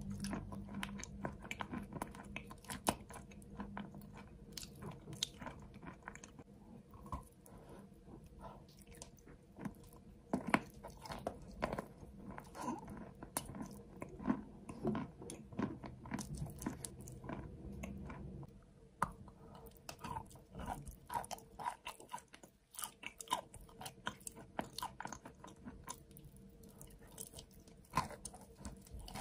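A person chewing and crunching chalk coated in wet clay paste close to the microphone: irregular crunches and mouth clicks, some sharper bites standing out.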